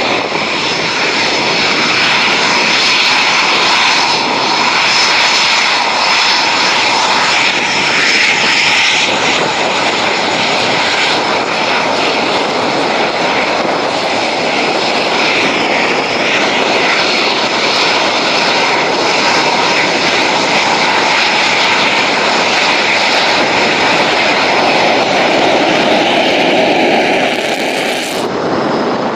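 Eurofighter Typhoon twin EJ200 turbofan jet engines running as the fighters taxi: a loud, steady jet rush with a high whine in it, changing abruptly near the end.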